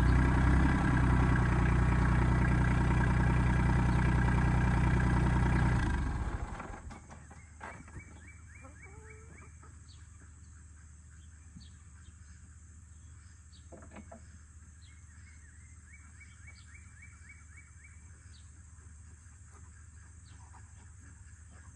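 RK25 compact tractor's diesel engine idling, then winding down and stopping about six seconds in. After it stops, birds chirp in the quiet, with a single knock near the middle.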